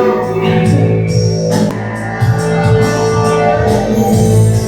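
Instrumental backing track of a pop song playing, with sustained keyboard and guitar chords over a steady bass line and occasional percussion hits.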